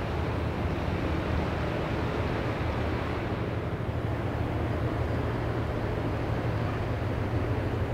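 Low, steady engine drone of a passing general cargo ship, under an even rushing hiss.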